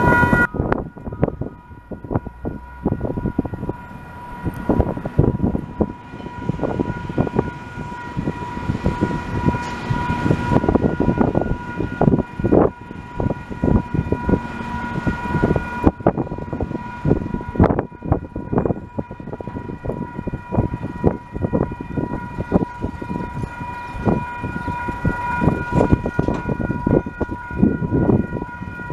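A railway level-crossing alarm sounds a steady, multi-pitched tone as KiwiRail diesel locomotives approach hauling a container train. Wind buffets the microphone irregularly throughout.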